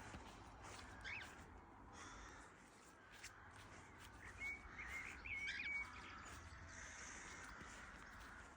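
Cockatiels giving soft chirps and short whistled calls: a single rising chirp about a second in and a brief run of chirps around halfway, over a faint steady hiss.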